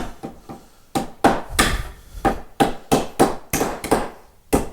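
Repeated light taps driving a wooden drawer corner joint together: after a quiet first second, about a dozen quick knocks at roughly three to four a second.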